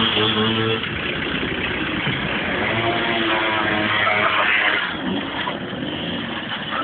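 Small motor scooter engine running and revving as the scooter rides off over snow, its pitch rising and falling.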